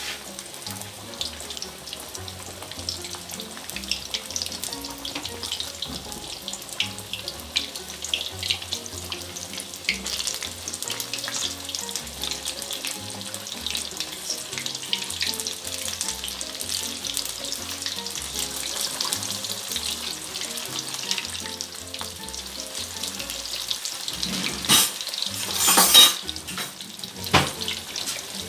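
Chicken leg pieces deep-frying in hot oil in a wok: a steady sizzle full of small crackling pops. Near the end comes a brief, much louder burst of sizzling and crackling.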